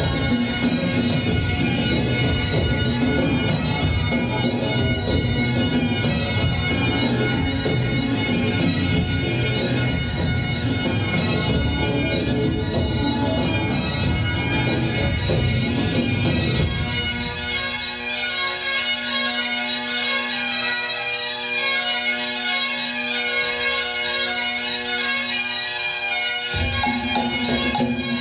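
Highland bagpipes of a pipe band playing a slow tune with a steady drone. The full band plays with heavy low accompaniment, then about two thirds of the way through it drops away to a thinner passage of pipes over the drone. The full band comes back in suddenly near the end.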